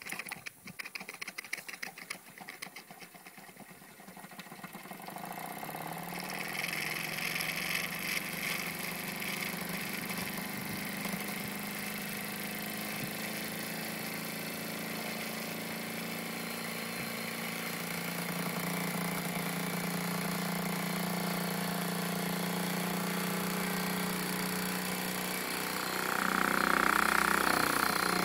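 Wilesco D455 model steam engine getting up to speed on its first steam: rapid, uneven clicking for the first few seconds, then a steady run with a hum and a hiss of steam that grows louder. The hiss swells to its loudest in the last two seconds.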